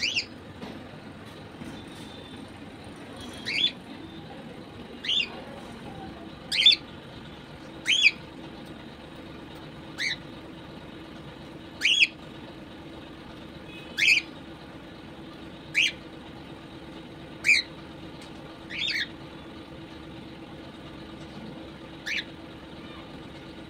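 Cockatiel giving short, sharp chirps, each dropping in pitch, about a dozen in all, one every second or two, over a faint steady hum.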